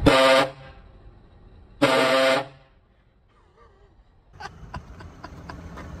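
Hornblasters Safety Horn 232, a fire-truck-style air horn run off an onboard compressor and tank, sounding two short, loud blasts of about half a second each, the second about two seconds in.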